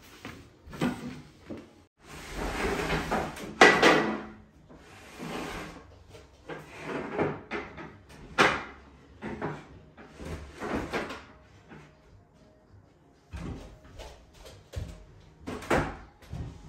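Wooden and metal parts of an IKEA Hemnes daybed frame being handled: a string of separate knocks, thuds and rubbing scrapes. A longer scrape about two seconds in ends in the loudest knock.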